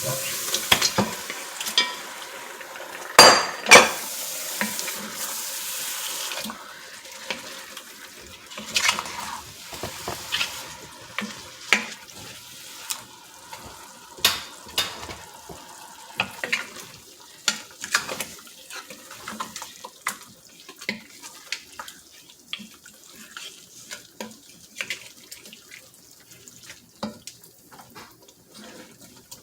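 Lamb meat going into a pot of frying spices and vegetables and being stirred. It sizzles for the first six seconds or so, with two loud knocks about three seconds in. Then a utensil clinks and scrapes against the pot at irregular intervals.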